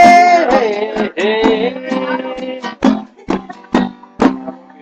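A man singing held 'hey' vocable notes while strumming an acoustic guitar. In the second half the singing stops and a few separate strums follow about half a second apart, the last chord ringing and fading out as the song ends.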